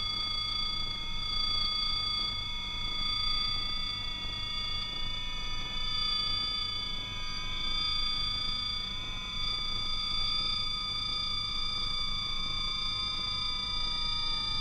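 Electronic sine-wave tones from a film soundtrack: several steady high-pitched tones held together, with fainter tones slowly sliding in pitch, most falling and one rising, over a low hum.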